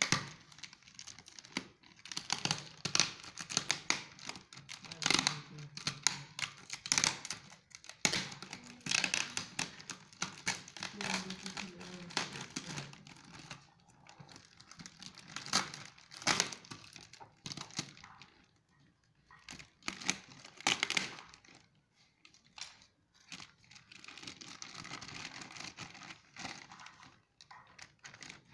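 Clear plastic wrapping crinkling and rustling in irregular bursts as it is handled and pulled off a boxed appliance. It goes quieter for a few seconds about two-thirds of the way through.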